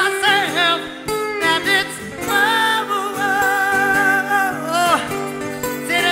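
Music: a song passage without sung words, a held, wavering lead melody over guitar accompaniment.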